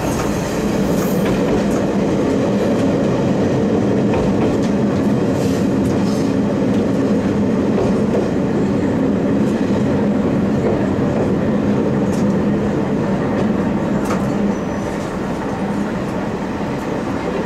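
Tarumi Railway Haimo 295 diesel railcar running, heard from the cab: a steady engine drone with the wheels clicking over the rail joints. The engine note drops a little near the end.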